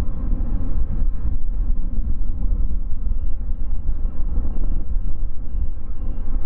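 Steady low rumble of distant airfield vehicle and aircraft noise, with wind on the microphone. About halfway in, a faint high beep starts repeating about twice a second.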